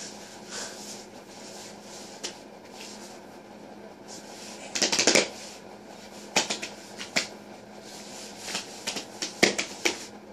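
Scattered taps and rustles of hands and knees on a woven floor mat as a baby crawls, with a denser burst of rustling about five seconds in and a few sharp ticks after it. A faint steady hum runs underneath.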